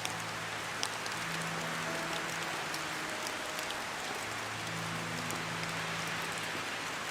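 Steady rain: an even hiss of rainfall with scattered sharp drop ticks, under faint held low musical tones.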